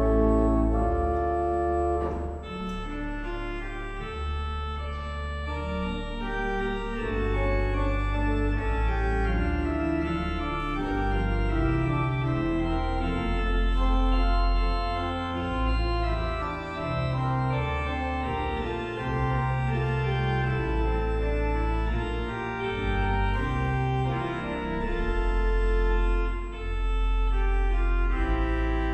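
Organ music: slow sustained chords over deep held bass notes that change every second or two.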